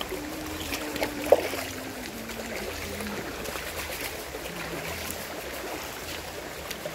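Shallow rocky river running steadily, with a single sharp knock just over a second in.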